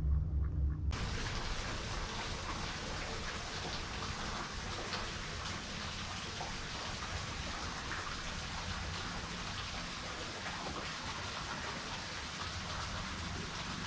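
Steady hiss and patter of falling water drops striking the lake surface, with fine crackling throughout. Under it for the first second is the low hum of the kayak's motor, which stops abruptly about a second in.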